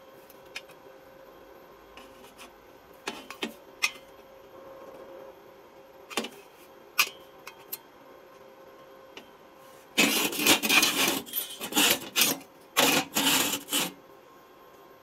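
A few light metal taps and clicks, then near the end two loud bursts of harsh metal-on-metal scraping and rattling, about two seconds and one second long, as a galvanized square steel tube is slid out of a welded steel jig on a steel worktable.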